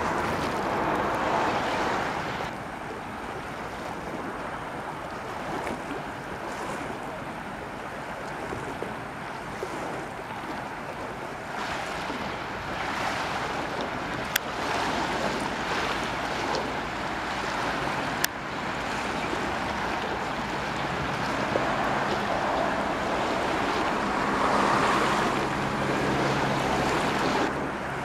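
Wind buffeting the microphone over lake water splashing and lapping, with a low steady hum coming in during the second half and two sharp clicks in the middle.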